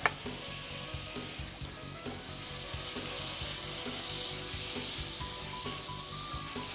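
Ginger-garlic paste sizzling in melted butter in a frying pan: a steady hiss that grows a little louder about halfway through.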